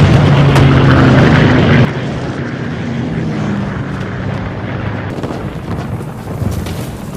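Twin propeller engines of a transport plane droning loudly, with booms of explosions. About two seconds in, the sound drops abruptly to a quieter rushing noise, with the engine drone fading away.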